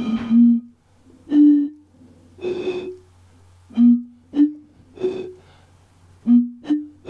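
Glass bottles holding different amounts of water, blown across the mouth to sound breathy pitched notes. Three notes rise in pitch one after another, and the three-note run is played three times.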